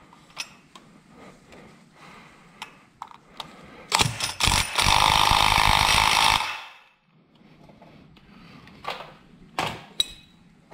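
Cordless impact wrench hammering on the clutch hub nut of a Suzuki RGV250 for about two and a half seconds, then stopping. Before and after it, light metallic clicks and knocks of tools and clutch parts being handled.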